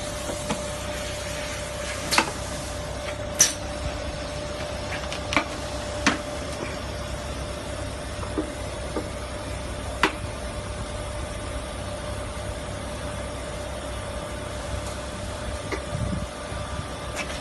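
Hot plate plastic welding machine running: a steady hum with a steady tone through it, and sharp knocks every few seconds, the loudest about two and three and a half seconds in.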